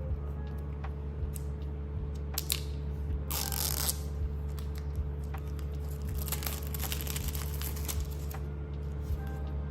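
Packaging being handled: plastic or paper wrap tearing and crinkling in two rustling bursts, about three seconds in and again from about six to eight seconds, among small clicks and taps.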